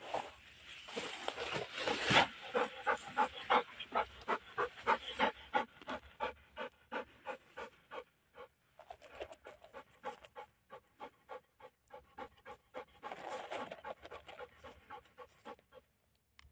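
A wire-haired pointer dog panting fast and hard, about three breaths a second. The panting is louder for the first several seconds, then softer.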